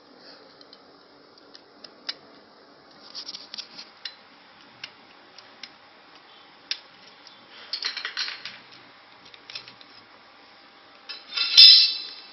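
Small metallic clicks and rattles from the mechanism of an RFID door lock being handled, in scattered short clusters, with a louder clatter near the end.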